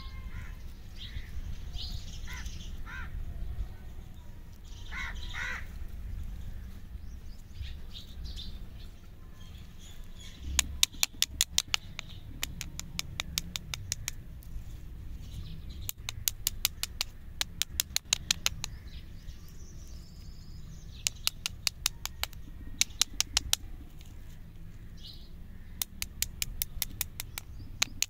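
Outdoor bird calls: scattered high chirps at first, then, from about ten seconds in, repeated runs of rapid sharp chips, about ten a second, each run lasting around a second, over a steady low background rumble.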